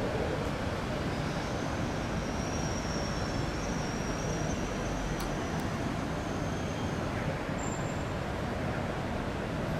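Keikyu electric train approaching slowly over a steel truss bridge: a steady low rumble, with a faint thin high whine through the middle.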